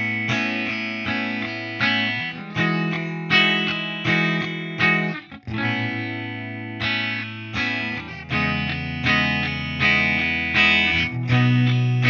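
Suhr Classic Pro electric guitar played with a clean tone through a Line 6 POD HD500 modeller: a run of picked notes and chords, each struck and left to ring, with a brief break about five seconds in.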